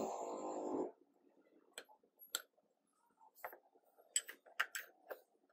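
A loud steady sound that cuts off about a second in, then sharp light clicks and taps, about eight of them at uneven intervals, as the wooden parts of a handmade rubber band gun are handled.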